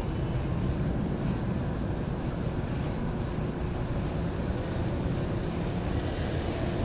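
Motor yacht's engines running steadily as it cruises slowly past, an even low drone with no change in pitch.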